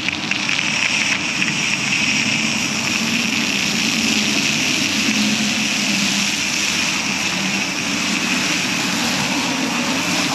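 Self-serve car wash pressure wand spraying coloured foam soap onto a pickup truck's tailgate and bumper: a steady hiss of spray with a low hum underneath.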